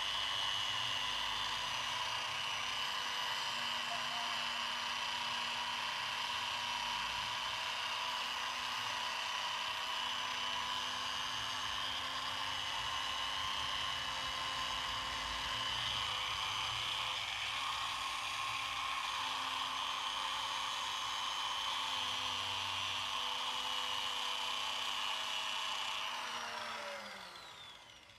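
Electric drill running steadily, spinning a cloth polishing buff against a motorcycle engine casing. Near the end it is switched off and winds down with a falling whine.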